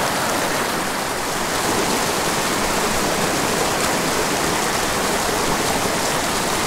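A small mountain creek tumbling over rocks in little cascades, a steady rush of water.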